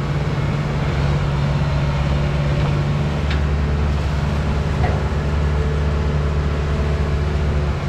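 A Kubota DC-series rice combine harvester's diesel engine running steadily as the machine crawls forward on its tracks.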